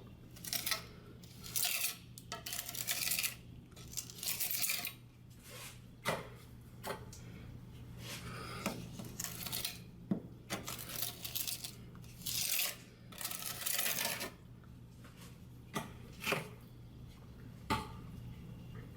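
Grout being spread and scraped across wall tiles with a float: a series of scraping strokes, some short and some about a second long, with a few sharp clicks of the tool against the tile.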